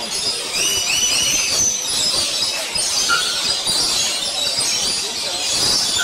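A flock of lorikeets screeching and chattering in a dense, overlapping chorus of shrill calls, several short rising notes a second.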